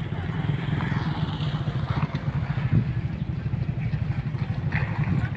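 A large engine running steadily, a low drone with a fast pulsing beat, with faint voices of people around it.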